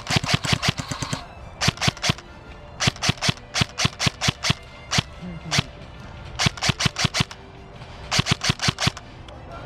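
Airsoft electric rifle firing covering shots: quick strings of sharp cracks with short pauses, about half a dozen to a dozen shots per string.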